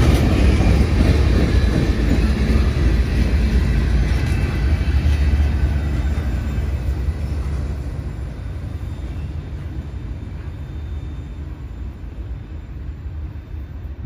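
Freight cars of a slow-moving CSX manifest train rolling over the rails: a steady low rumble that fades over the second half as the train draws away.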